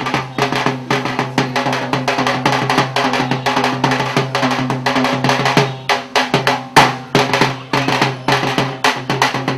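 Thappu, the Tamil frame drum, played at a fast, driving rhythm of sharp strokes with louder accents, as accompaniment for Thappattam dancing. A steady low hum sounds underneath.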